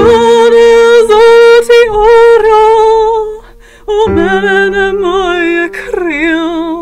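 A woman singing long held, wavering notes without words, in two phrases with a short break between, over a steady low drone.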